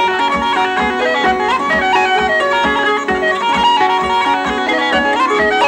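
Uilleann pipes playing a quick-moving traditional Irish tune, accompanied by a harp.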